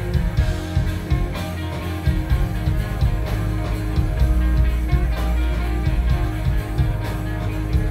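A live rock band playing: electric guitars over a drum kit, a dense, steady wall of music with a heavy low end and regular drum hits.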